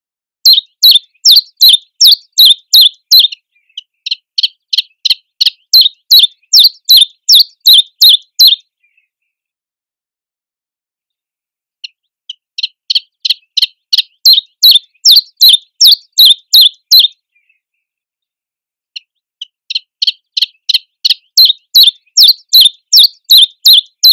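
Common chiffchaff singing: a steady string of sharp, high notes, about three a second, in three long runs with short pauses between.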